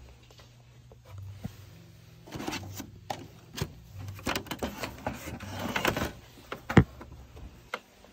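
Handling noise: a run of clicks, knocks and rustles as objects and the phone are moved about, with one sharp thump near the end, over a low steady hum.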